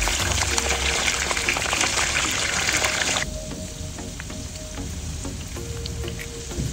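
Okra pods and whole spices frying in hot oil in a steel pan, a dense crackling sizzle. It drops abruptly to a softer sizzle a little over three seconds in.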